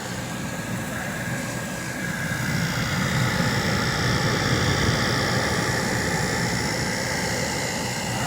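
TCL portable air conditioner running with a steady whooshing hum, which grows a little louder about two to three seconds in.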